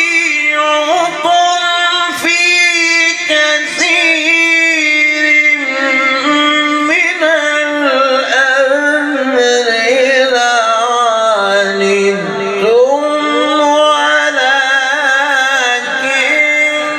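A Quran reciter's voice chanting in the melodic tajweed style, drawing out long, ornamented notes in one unbroken phrase. About twelve seconds in the pitch sinks low and climbs back up.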